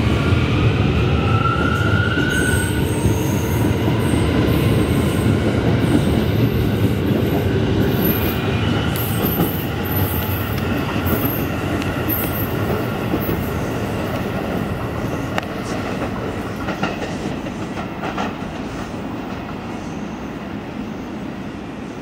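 R179 subway train pulling away, its propulsion giving a rising whine in the first couple of seconds. Thin high wheel squeals follow, with a few sharp clacks over the rail joints later on, and the whole sound fades steadily as the train recedes.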